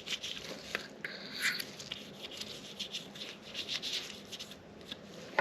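Faint scratching and rubbing of hands working over pistol parts and a small oil applicator, with scattered light ticks.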